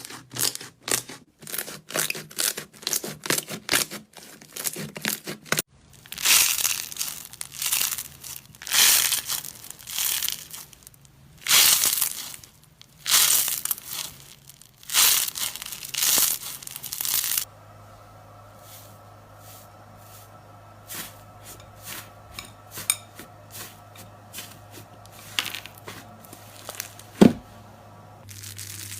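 Slime being squeezed and stretched by hand: rapid crackling pops for the first five seconds, then longer sticky crinkling pulls about a second each, then a quieter stretch of scattered small clicks.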